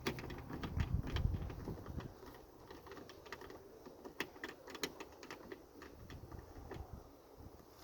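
Torx screwdriver working the retaining screw of a car's rear door handle: scattered light clicks and taps of the tool and the handle's plastic parts, with a heavier low rumble of handling in the first two seconds.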